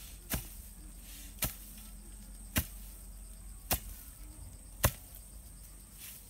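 A steel spade blade chopping down into hard, sandy ground and grass roots, five sharp strikes about a second apart.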